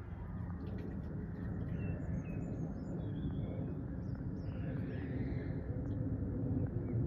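Steady, distant rumble of a twin-engine jet airliner passing high overhead, growing slightly louder near the end. Birds chirp in short calls through the middle.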